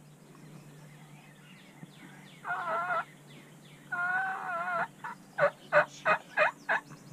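Wild turkey calling: two warbling gobbles, then a quick run of five short, sharp calls.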